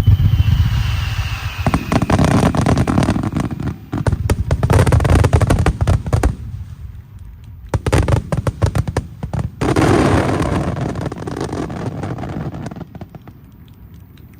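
Fireworks shells bursting at close range in dense waves: deep booms with heavy crackling, a short lull about halfway through, then a last big volley about ten seconds in that fades away over a few seconds.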